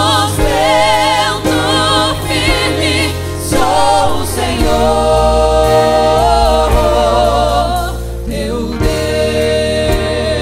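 A woman singing a slow church worship song with strong vibrato through a microphone, holding one long note near the middle, over electronic keyboard accompaniment with steady low notes.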